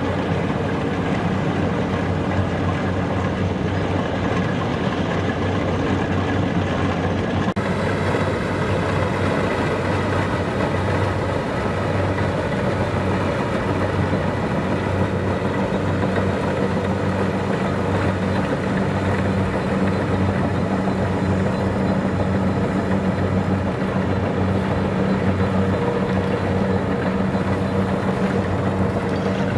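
Kubota DC-70 Plus combine harvester's diesel engine running steadily under harvesting load, with a constant low hum.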